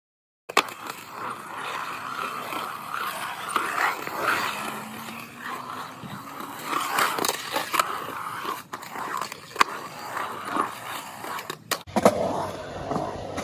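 Skateboard wheels rolling over a concrete skatepark bowl, with several sharp clacks of the board and trucks striking the concrete.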